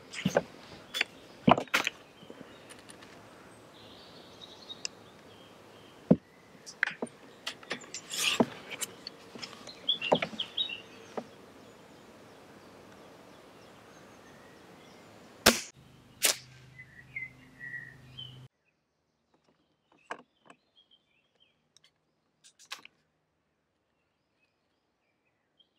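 A .22 Walther LGU Varmint underlever spring-piston air rifle being handled: a run of mechanical clicks and knocks as the underlever and breech are worked and a pellet loaded, then a sharp shot about fifteen seconds in with a second sharp crack just after. Only faint clicks follow as the next pellet is taken from the tin.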